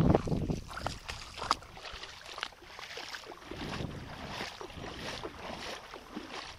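Wind buffeting the microphone outdoors, strongest in a gust at the start, with a few footsteps on wet pavement.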